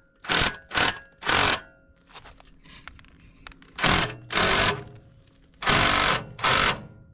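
Impact wrench run in seven short bursts, in three groups, working the bolts of the fuel tank's strap.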